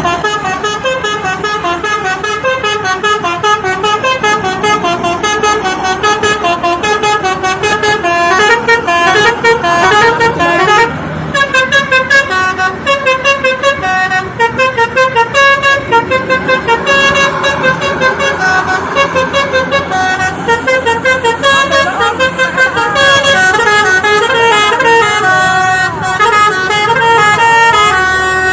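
Basuri telolet horn, a multi-tone musical vehicle horn, playing a melody of stepped notes without a break, with a fast stuttering run of notes near the middle and some sliding, siren-like notes later on.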